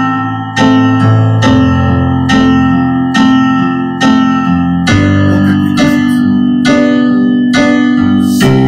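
Digital stage piano with a piano sound playing a slow ballad accompaniment through the I–vi–IV–V chord progression (C–Am–F–G): even repeated chord strikes about twice a second over held bass notes, the chord changing about every three and a half seconds.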